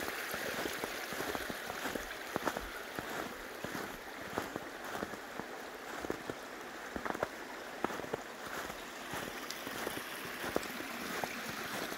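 A small forest creek running and trickling steadily, with scattered light taps and drips over it.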